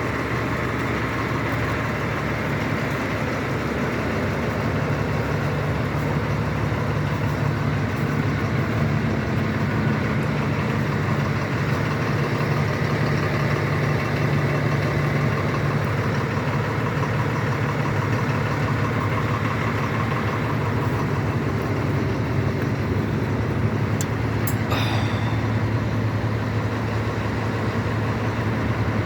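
Caterpillar 250 hp diesel engine running steadily. It drops to a slightly lower speed about three-quarters of the way through, and a short high falling squeak sounds soon after.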